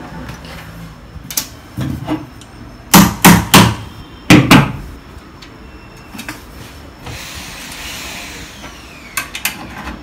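Knocks and clacks of metal and wood as the gas-spring strut of an Ebco bed-lift mechanism is worked onto the stud of its hinge bracket. There are a few light taps, then a cluster of five loud knocks about three to four and a half seconds in, and two light taps near the end.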